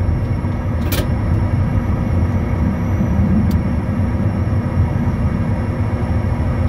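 Bombardier Challenger 350's Honeywell HTF7350 turbofans at taxi power, heard from inside the cabin: a steady low rumble with a faint high whine. A sharp click sounds about a second in.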